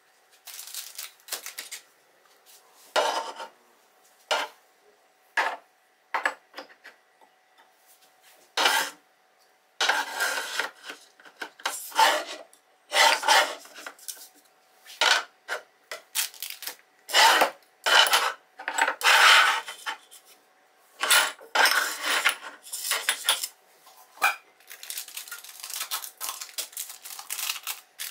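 Glass jars and plastic-lidded canisters being set down and slid across a cabinet shelf: irregular clinks, knocks and scrapes, sparse at first and busier from about ten seconds in, with a longer rustle of packaging near the end.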